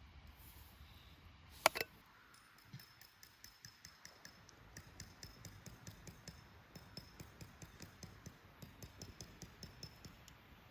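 A sharp click, then a steady run of faint light taps, about three a second, that stops shortly before the end.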